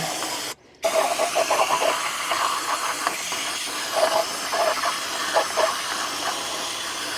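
Aerosol brake cleaner spraying in a steady hiss, with a short break about half a second in.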